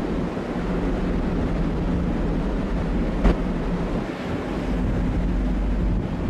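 Wind buffeting the microphone on the open deck of a ferry under way, over a steady low rumble. A single sharp click sounds a little past halfway.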